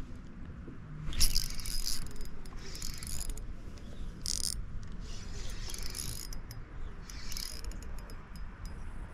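Shimano Stella 2500S spinning reel being cranked in short spells with pauses between, a whirring, clicking rattle as the line is retrieved.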